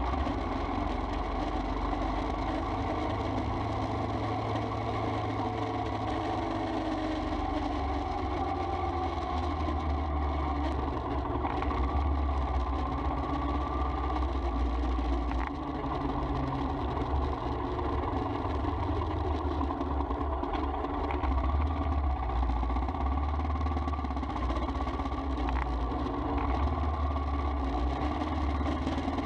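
Royal Enfield Himalayan's single-cylinder engine running at low road speed, its note rising and falling gently with the throttle, over road and wind noise.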